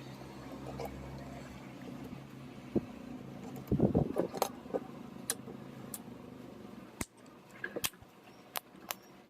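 Handling noises: scattered sharp clicks and knocks, with a louder cluster of knocks about four seconds in, over a low steady hum that fades out in the first two seconds.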